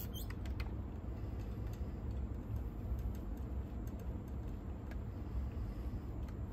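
Faint, scattered small clicks from a Nakamichi 680ZX cassette deck's head-lift mechanism being turned by hand to raise the head assembly, over a steady low hum.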